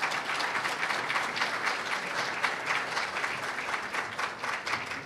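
Audience applauding in a hall, a steady patter of many hands clapping that dies down near the end.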